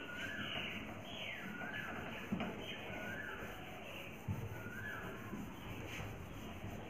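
A whiteboard being wiped with a duster, with rubbing noise and a couple of knocks, while a bird calls over and over with a short gliding note about once a second.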